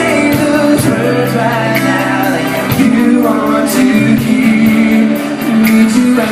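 A live band playing a pop song, guitar and sung vocals, with long held notes.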